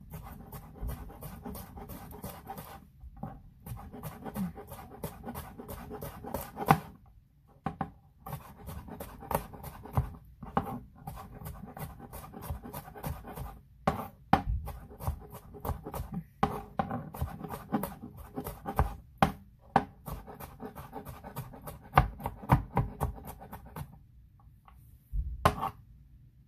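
Chef's knife rapidly mincing garlic on a plastic cutting board: quick runs of knife strikes, several a second, broken by short pauses, ending in a louder knock shortly before the end.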